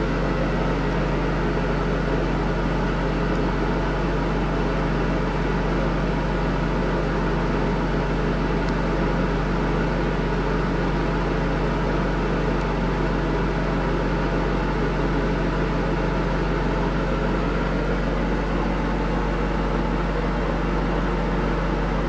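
Steady mechanical hum: a low drone with even hiss over it, unchanging throughout, with no distinct knocks or other events.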